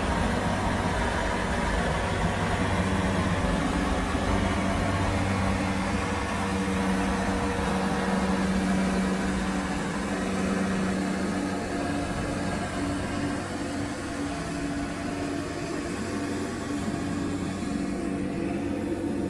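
Kubota DC60 combine harvester's diesel engine running with a steady drone.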